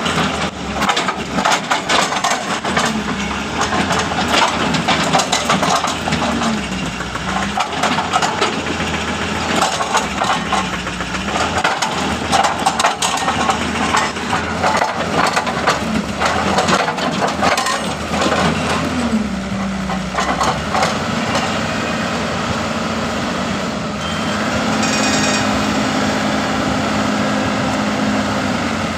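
Hitachi excavator's hydraulic breaker hammering and crushing rock: a fast run of hard impacts over the diesel engine. A little past halfway the hammering stops and the engine runs on steadily, a bit louder for the last few seconds.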